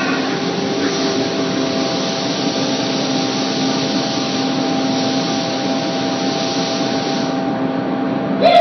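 Paint sprayer running: a steady spraying hiss over a motor's even hum. The hiss thins out near the end and a sharp click follows.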